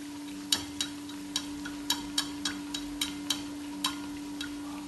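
Bread samosas deep-frying in hot oil in a pan: the oil crackles and pops irregularly, about two pops a second, over a steady low hum.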